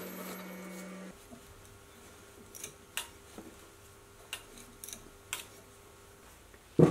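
A milling machine spindle hums and stops about a second in. Then a tap is turned by hand in a T-handle tap wrench to cut threads into a steel block, giving a handful of short sharp clicks. A brief louder thump comes just before the end.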